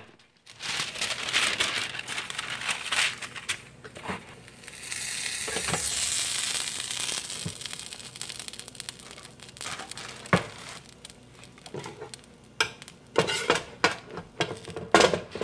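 A sandwich sizzling and crackling in an electric panini grill, with a hiss that swells a few seconds in, and sharp knocks and clicks of the sandwich and utensils being handled.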